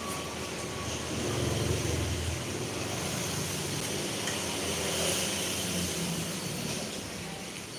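A low, steady rumble, swelling about one and a half to two and a half seconds in, under an even background hiss.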